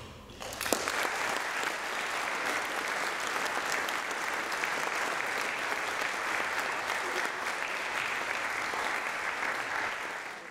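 Audience applauding, breaking out about half a second in and holding steady until it is cut off abruptly.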